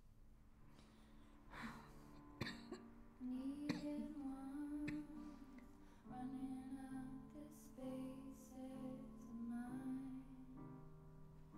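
Quiet background music: a slow, gently wavering melody over held notes, with a few soft struck accents.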